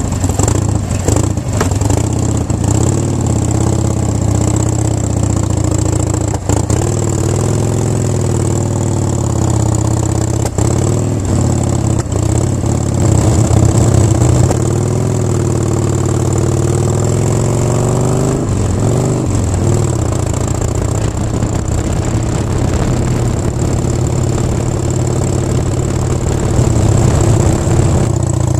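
Motorcycle engine running while riding, heard close-up from low on the bike's engine guard: a heavy low rumble whose pitch rises and falls with the revs, with a few sharp knocks from the road and mount.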